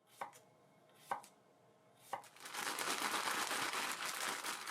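Knife chopping cucumber on a cutting board: three separate cuts about a second apart, then a fast, continuous run of rapid chopping.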